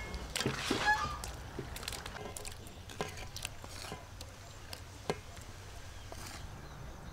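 Cut squid scraped with a wooden spatula from a metal colander into a wok of water, with scattered light taps and knocks. A short bird call sounds about half a second in.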